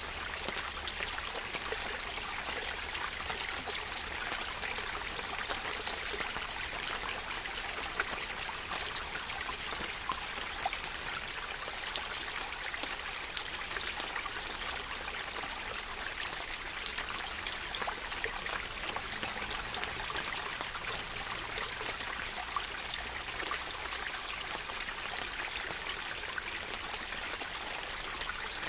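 Steady running water with many small drips and splashes mixed in, unchanging throughout.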